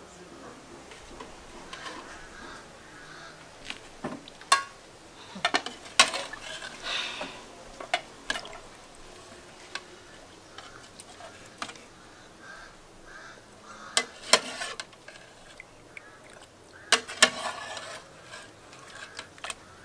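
Metal cooking pot and utensils clinking and knocking, with some stirring. The knocks are sharp and irregular and come in scattered clusters; the loudest fall about six seconds in and again near the end.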